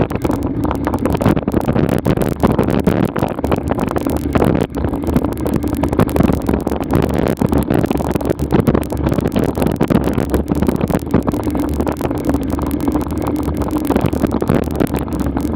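A vehicle's engine running steadily at walking pace, a constant low hum, with rough crackling and rumble on the microphone throughout.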